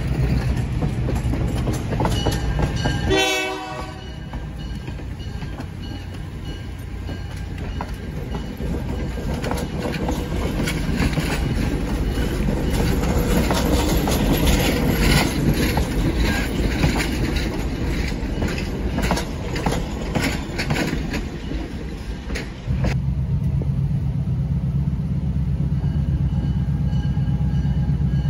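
Passenger coaches rolling past close by, their wheels clicking and clattering over the rail joints, with a brief high tone about three seconds in. About 23 seconds in this switches abruptly to the steady low drone of a diesel locomotive approaching from a distance.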